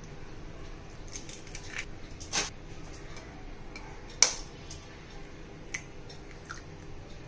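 An egg shell being cracked with a kitchen knife over a glass bowl: one sharp crack about four seconds in, among small clicks and taps of shell, knife and glass.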